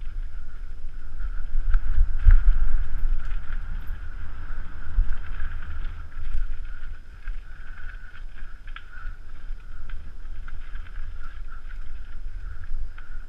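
Mountain bike riding fast down a dirt forest singletrack: wind buffeting the microphone and tyres rolling over the trail, with a steady high buzz and scattered knocks and rattles from the bike over roots and bumps.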